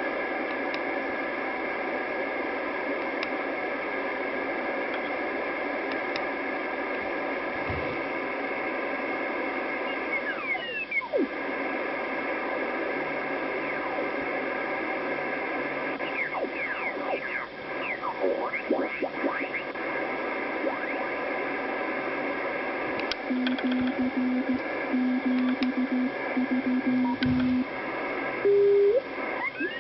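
Kenwood TS-680 transceiver's receiver audio: steady band noise and hiss, with whistling tones that glide down and up as it is tuned across signals. Near the end a low tone is keyed on and off in short beeps.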